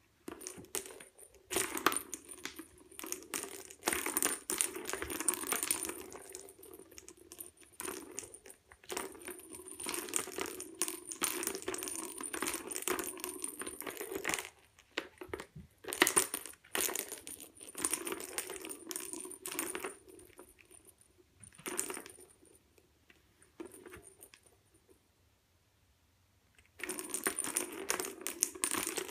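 Plastic ball rolling and rattling around the circular track of a cat's track toy as it is batted, in runs of several seconds with short pauses, stopping for a few seconds and starting again near the end.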